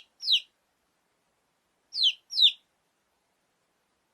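Domestic chicken chick peeping: short, high calls, each falling in pitch. They come in pairs, the first just as it opens and two more about two seconds in, with silence between.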